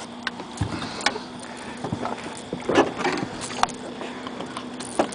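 Irregular knocks and taps in a fishing boat, about one or two a second, over a faint steady hum.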